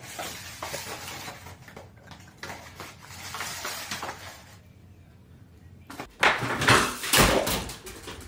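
Cats scuffling and batting a small cardboard box across a tile floor, with light scrapes and knocks. About six seconds in there is a much louder clatter lasting under two seconds, like things crashing down.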